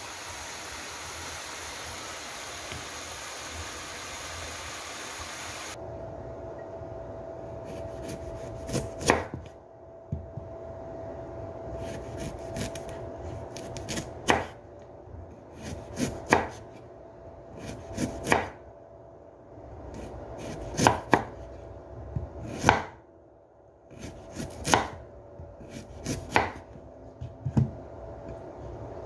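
Sliced mushrooms sizzling in a little oil in a frying pan for about six seconds. Then a kitchen knife slicing a carrot into rounds on a wooden cutting board: a dozen or so single chopping strokes, about one every one to two seconds.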